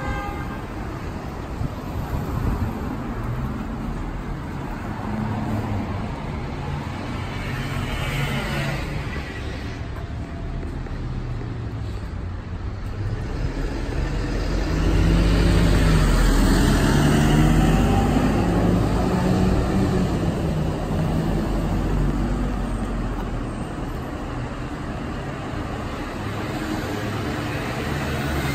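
Urban road traffic: cars passing along a two-lane street. About halfway through, a heavier vehicle goes by louder, its engine note rising for several seconds before the traffic settles back to a steady hum.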